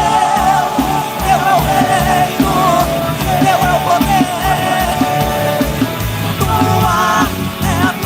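Christian worship band playing a song: a voice sings the melody over a steady drum beat and bass.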